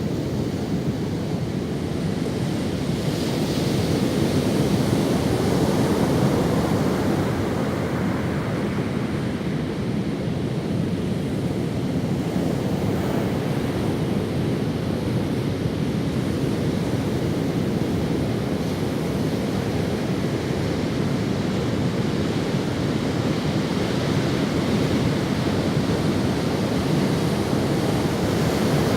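Ocean waves washing onto a sandy beach: a steady surf rush that swells gently a few seconds in and again near the end.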